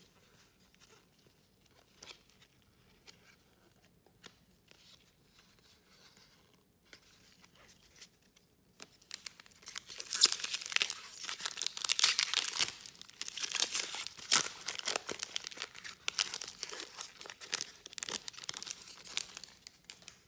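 A trading-card pack wrapper torn open and crinkled. Faint clicks and rustles for the first several seconds, then loud, continuous crackly tearing and crumpling from about nine seconds in.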